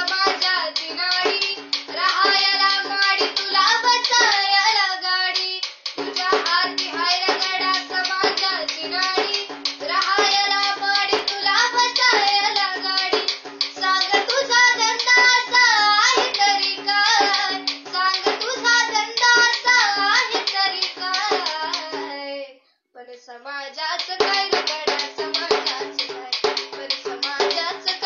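A young girl singing a Marathi song, accompanying herself with hand strokes on a double-headed drum. The singing and drumming break off for a moment about three-quarters of the way through, then carry on.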